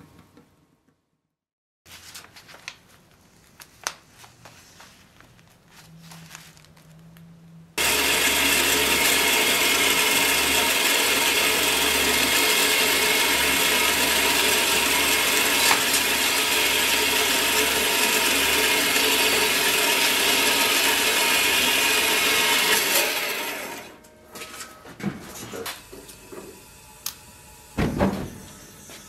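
Horizontal metal-cutting bandsaw running through steel bar stock: a loud, steady mechanical noise that starts suddenly about eight seconds in and stops about fifteen seconds later. Near the end comes a short loud burst as the gas forge is lit.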